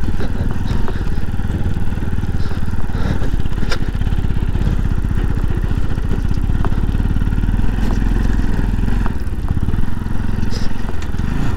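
Bajaj Pulsar NS200's single-cylinder engine running steadily as the motorcycle is ridden over a loose sandy, stony track. A few sharp clicks are heard along the way.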